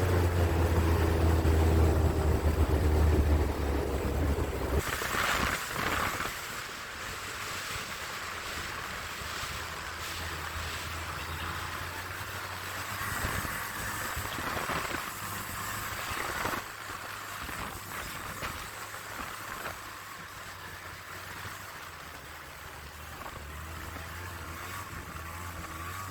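Snowmobile engine running under load, then dropping away suddenly about five seconds in to a much quieter low hum, with a steady rushing hiss of wind and snow noise.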